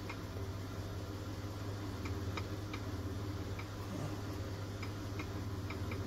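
Light, irregular clicks from key presses on a diagnostic tablet's touchscreen keyboard, about ten of them from about two seconds in, over a steady low hum.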